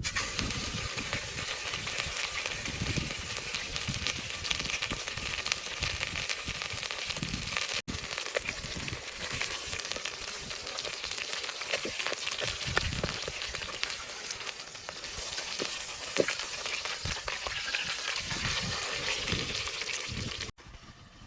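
Steady sizzling and crackling from cooking over a wood fire, with many small crackles and a few sharper pops. It breaks off abruptly about eight seconds in and again near the end, where it drops away.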